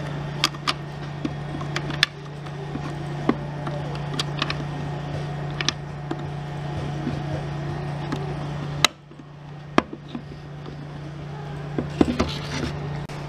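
Scattered clicks and taps of the plastic and metal parts of a Handy Stitch handheld mini sewing machine being handled and fitted together at its needle assembly, with a cluster of clicks near the end, over a steady low hum that drops out briefly about two thirds of the way through.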